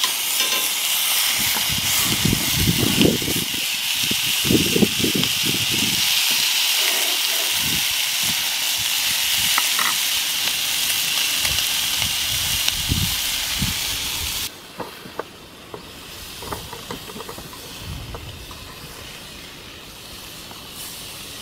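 Bacon-wrapped sausages sizzling in a hot cast-iron frying pan, with a few clicks of a spoon against the pan as they are rolled over. About fourteen seconds in, the sizzle drops suddenly to a quieter hiss.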